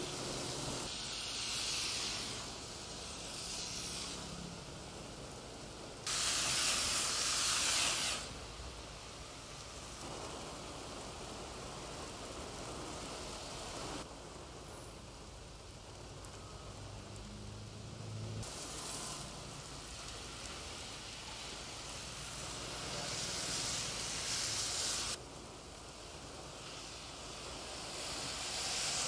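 Heavy rain falling in a steady hissing downpour, its loudness and tone jumping abruptly several times, loudest for about two seconds some six seconds in.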